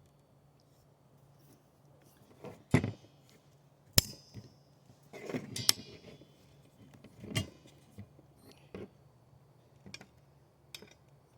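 Scattered metallic clinks and knocks as refrigerant tubing is handled and fitted into place in an outdoor condenser unit, about eight sharp taps spread irregularly over several seconds.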